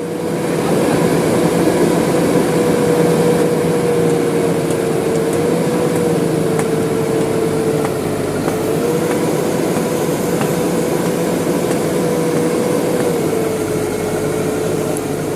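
JCB backhoe loader's diesel engine running steadily, with a steady whine that dips slightly in pitch a few times.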